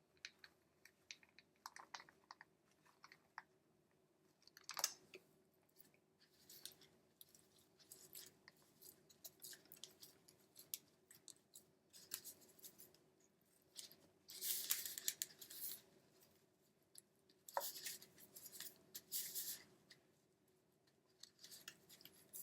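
Faint kitchen handling noises: scattered light clicks and taps, with two short stretches of rustling and scraping about two-thirds of the way in, as food and packaging are handled.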